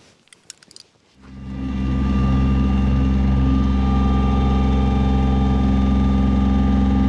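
A few faint clinks, then, about a second in, a Kubota LX2610 compact tractor's three-cylinder diesel engine fades in and runs steadily at an even speed.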